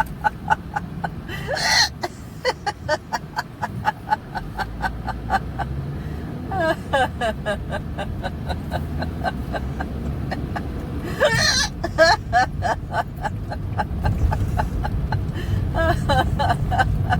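A woman's hiccups in rapid runs of short, pitched hiccups, about four or five a second, broken by a couple of longer voiced groans. A car's steady road rumble runs underneath.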